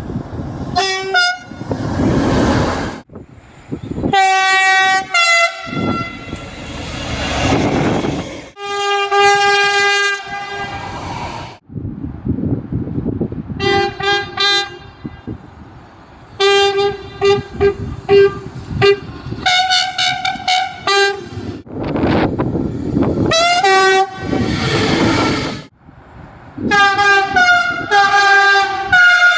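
A run of train horn blasts in quick succession. Some are short toots a fraction of a second long, and others are held for a second or two. The noisy rumble of passing trains fills the gaps between them, and the sound changes abruptly from one blast to the next.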